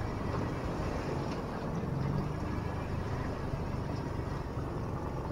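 Boat's outboard motor running steadily at trolling speed, a constant low hum with water and wind noise over it.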